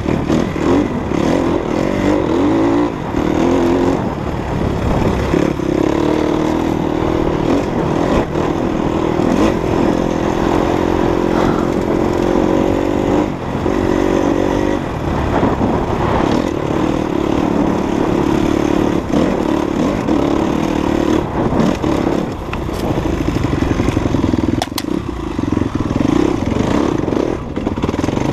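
Off-road enduro motorcycle engine running while riding a trail, its pitch rising and falling with the throttle.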